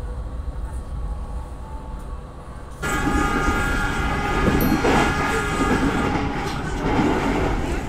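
Passenger train running on the rails with a low rumble. About three seconds in it gets suddenly louder, and a steady high ringing of several tones sounds over the rattling of the cars.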